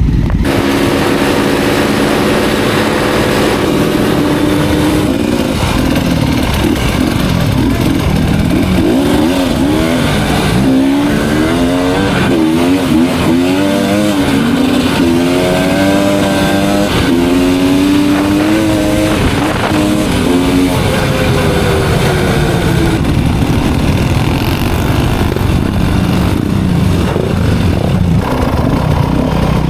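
Off-road enduro motorcycle engine running as the bike rides, its pitch rising and falling over and over with the throttle through the middle stretch.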